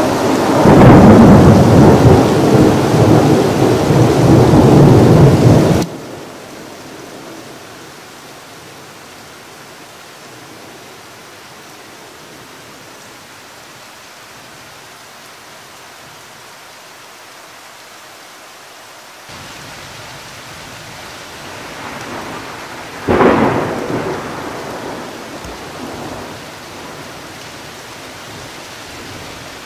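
Thunder rumbling very loud and distorted, cutting off suddenly about six seconds in, leaving steady rain hiss. About 23 seconds in, a sharp thunderclap cracks and rumbles away over a few seconds over the rain.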